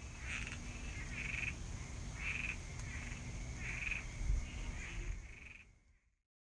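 Frogs calling, short croaking calls repeating about once a second over a low rumbling background and a steady high hiss, fading out about six seconds in.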